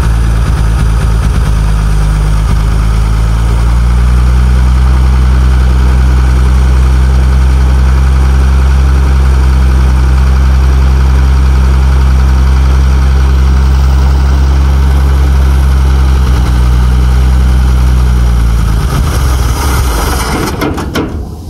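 The 1948 Bedford truck's six-cylinder engine runs steadily on fuel poured from a bottle straight into the carburettor. It is running only off the bottle because the tank fuel is contaminated with water and stale fuel. The engine dies away near the end once the pouring stops.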